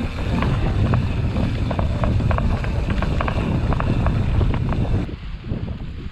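Wind buffeting the action camera's microphone while a mountain bike rolls over a bumpy grass and dirt track, with the bike rattling and clicking on the bumps. About five seconds in the sound cuts abruptly to a quieter, duller wind rumble with a few faint clicks.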